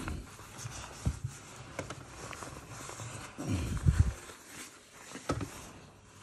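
Handling noises as a mesh dog vest is worked onto a Dogue de Bordeaux: fabric rustling and a few sharp knocks, with a louder low rumbling bump about four seconds in.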